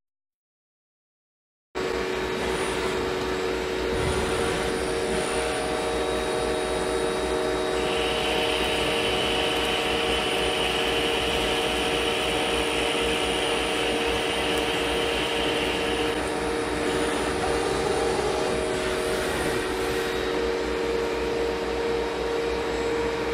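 CNC lathe turning a grooved metal workpiece: a steady machine hum with several constant tones, starting after about two seconds of silence. A hiss of coolant spray joins for several seconds in the middle.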